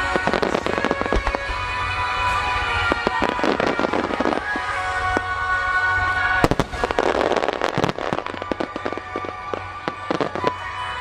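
Fireworks shells bursting in rapid clusters of bangs, the densest about six and a half seconds in, with crackling after the bursts. Music plays along with the display throughout.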